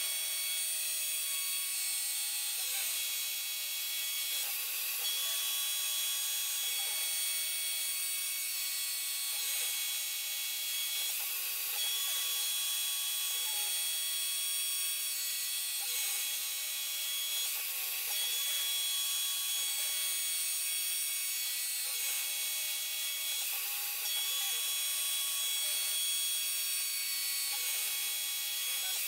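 CNC router milling aluminium with an end mill: a steady high spindle whine and cutting noise, with tones from the drive motors that change pitch every second or two as the cutter changes direction.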